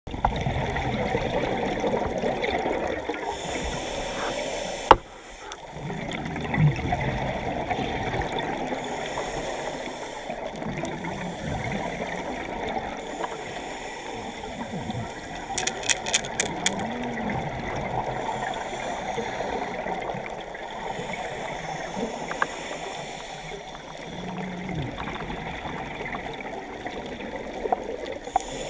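Scuba regulator breathing underwater: the hiss of inhalations coming and going every few seconds over the steady rumble and gurgle of exhaled bubbles. A sharp click about five seconds in, and a quick run of clicks around the middle.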